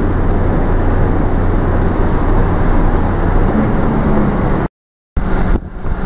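Loud, steady rumble of storm wind mixed with the running of a moving vehicle, with a low drone underneath. The sound cuts out completely for about half a second near the end, then comes back quieter.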